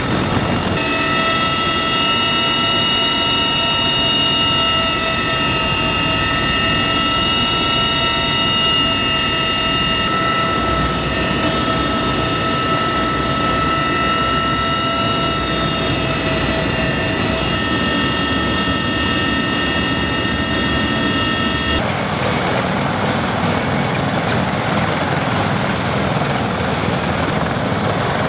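CH-53E Super Stallion helicopter in flight, heard from inside the cabin: a steady high turbine whine from its three turboshaft engines over a dense rotor and gearbox rumble. About 22 seconds in it cuts to a steady rushing noise with no whine, the rotor wash of helicopters at a dusty landing zone.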